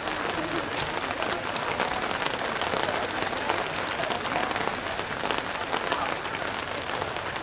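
Rain pattering steadily, with many small sharp ticks, mixed with scattered clapping and faint crowd voices from the sideline.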